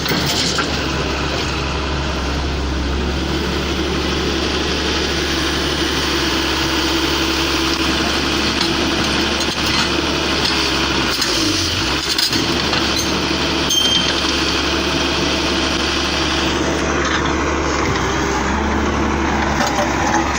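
Excavator's diesel engine running steadily, with a few sharp knocks about twelve and fourteen seconds in.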